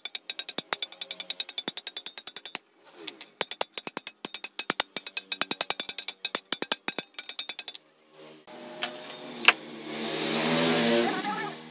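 Rapid blows of a small hand hammer on a steel crowbar resting on a bench vise, about five a second, each with a high metallic ring, pausing briefly near three seconds and stopping a little before eight seconds. After that comes a steady low buzz with a hiss that swells and then fades.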